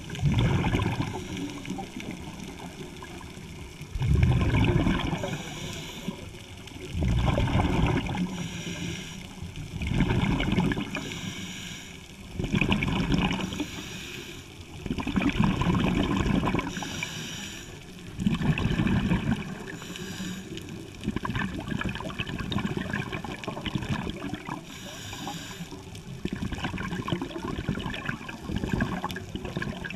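Scuba diver breathing through a regulator underwater: a hiss on each inhale, then a loud rush of exhaled bubbles, in a slow cycle about every three seconds.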